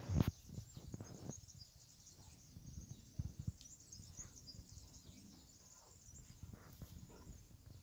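Faint, irregular high chirping in the background, with intermittent low rumbles and one sharp knock just after the start.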